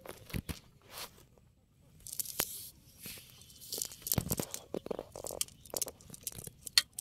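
A wet fishing net clogged with waterweed being pulled and picked through by hand: irregular rustling, crackling and snapping.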